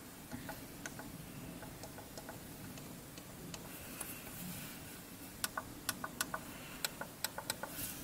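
Keys of a sealed membrane keyboard being pressed, each press giving a small click from the Omron micro-switch beneath it. Faint, scattered clicks come first, then a quick run of about a dozen sharper clicks in the second half.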